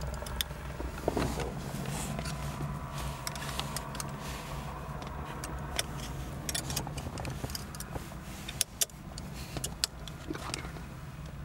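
Shift knob being turned onto the threaded shifter lever, with scattered small metallic clicks and rattles, over a steady low hum.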